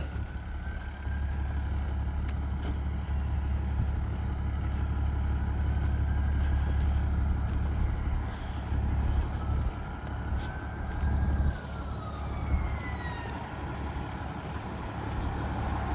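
Steady low rumble of vehicle engines running, with a faint distant emergency siren gliding slowly up and down in pitch. The siren is clearest from about nine to thirteen seconds in.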